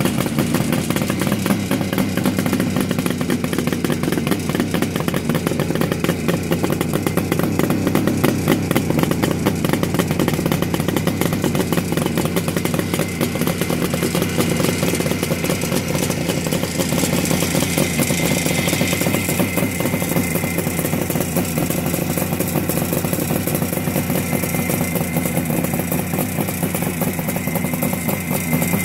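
1974 Kawasaki H1 500's air-cooled two-stroke triple running steadily while the bike stands still, a rapid, even crackle from its three cylinders.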